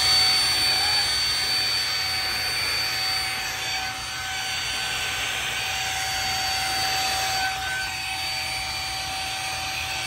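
Household vacuum cleaner running steadily with a high motor whine and rushing air as its nozzle sucks dust and lint off a refrigerator's condenser coils.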